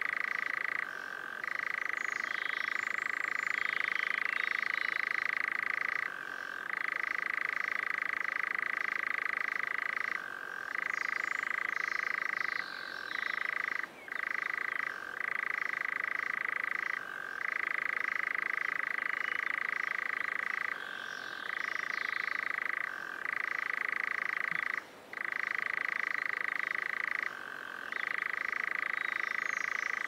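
European nightjar churring: a long, even trill held for several seconds at a time, broken by about a dozen brief pauses, with faint higher chirps over it now and then.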